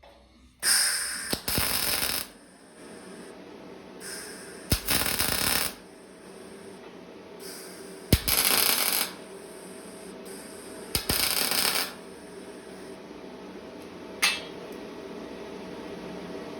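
Electric arc welder laying four short tack welds, each a burst of crackling about a second long that starts with a sharp click, about three seconds apart, over the steady hum of the welding machine.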